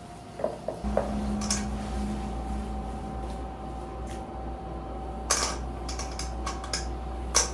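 A spatula working a wok during stir-frying: scattered clicks and clatters of metal on the pan, with two louder scrapes about five and seven seconds in.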